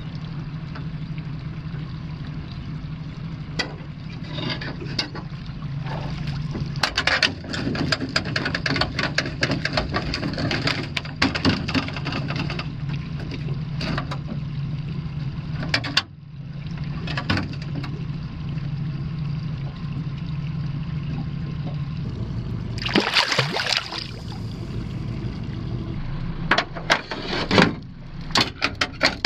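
A mesh net trap being hauled up by its rope and handled in an aluminium boat: water splashing and dripping, with frequent knocks and clicks of the rope and trap frame against the hull, over a steady low hum. A louder burst of water noise comes about two-thirds of the way through.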